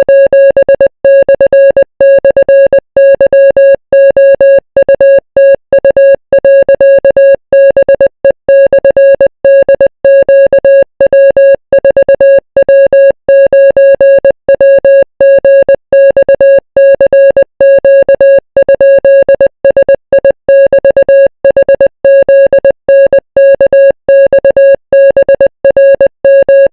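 Morse code sent as a single loud, mid-pitched electronic beep, keyed on and off quickly in a fast, unbroken run of dots and dashes with only brief pauses between characters.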